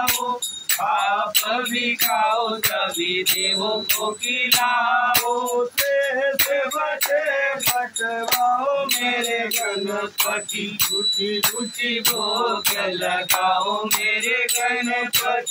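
A devotional aarti hymn sung with a male voice leading, kept in time by sharp hand claps about twice a second.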